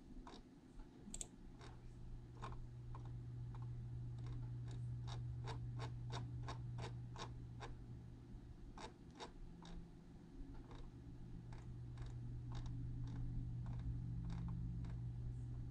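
A run of light, sharp clicks, about two or three a second with short pauses, over a steady low hum.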